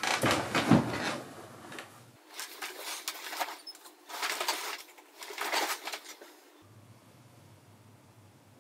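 Duvet and bedsheets rustling in about four bursts as a person settles and turns over in bed.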